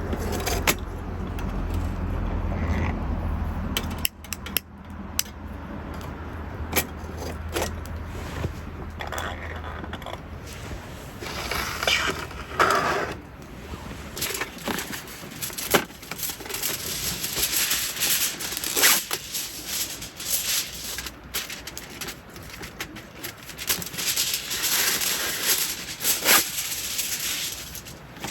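Objects being handled at close range: a run of clicks, scrapes and rustles. A low steady hum underneath cuts off about four seconds in.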